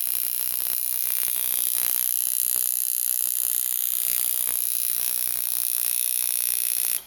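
Hand-built reverse-spring coil tattoo machine running: the heavy armature bar is driven by the copper-wound coils and gives a steady, even buzz. It cuts off suddenly near the end.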